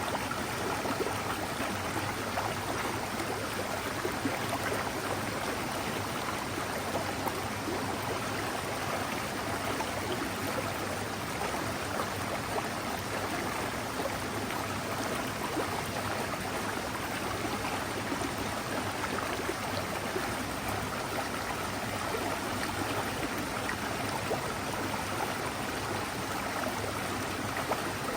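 Mountain stream water flowing steadily over rocks, a continuous even rushing and babbling.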